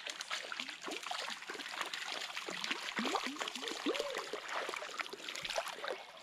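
A hooked brown trout splashing and thrashing at the surface of the stream as it is drawn in to the net: a quick, irregular run of small splashes and gurgling plops.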